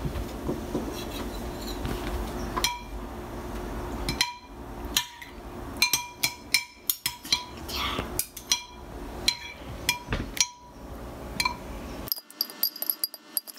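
Metal spoons clinking against each other and the bowl while mashing soft cooked apples into applesauce: an irregular run of light clinks, thickest from about four seconds in.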